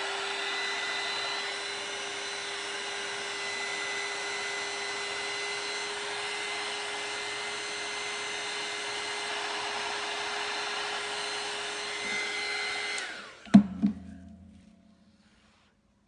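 Handheld electric heat gun blowing steadily with a constant whine, pushing the wet acrylic paint outward into petals. It switches off about thirteen seconds in and is followed by two sharp knocks.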